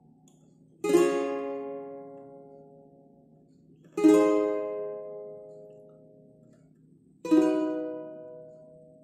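Ukulele with a capo at the first fret, strummed once per chord as the song's chords are sounded one by one: three single strums about three seconds apart, each left to ring and die away.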